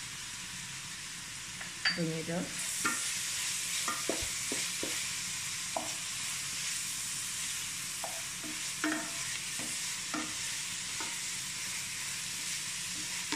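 Sliced onions sizzling as they fry in oil in a nonstick pan, with a spatula stirring them and knocking and scraping against the pan at irregular moments. The sizzle grows louder a couple of seconds in.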